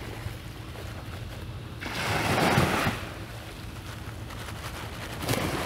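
Small waves washing up on the shore twice, each a rush of about a second, about two seconds in and again near the end, over a steady low hum.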